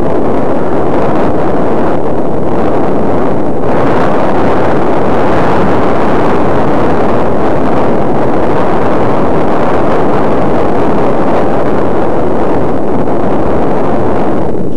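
Loud, steady wind rushing over the microphone of a glasses-mounted camera as the wearer rides a bicycle, getting a little brighter about four seconds in.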